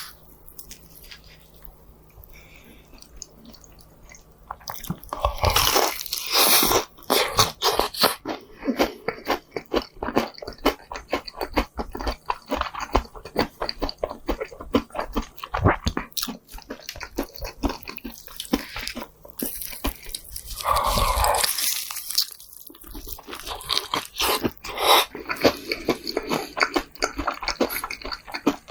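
Close-miked eating: crunchy bites into crispy fried chicken and chewing, many sharp crackles in a row. It is quieter for the first few seconds, then louder, with two heavier bursts of bites.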